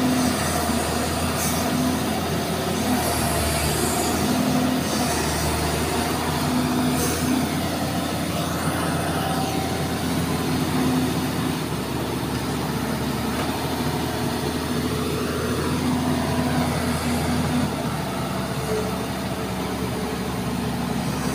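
Kato SR-250SP-V rough-terrain crane's diesel engine running under load as its hydraulics swing the superstructure and raise the boom during a function test. The engine drone is steady, with its low note shifting several times as the controls are worked.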